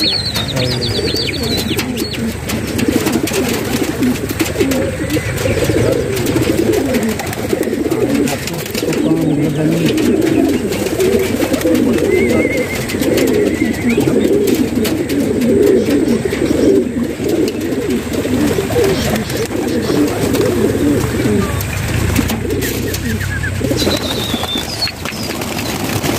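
Many domestic pigeons cooing together close by, a dense, unbroken chorus of overlapping low coos. A few thin, high chirps from another bird come through near the start and again near the end.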